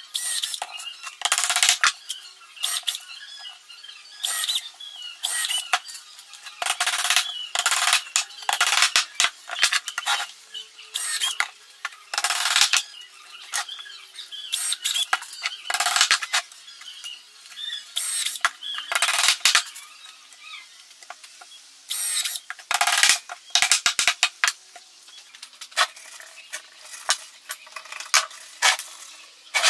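Short, irregular scraping strokes on rough pallet wood, from a hand file working the edges of the box.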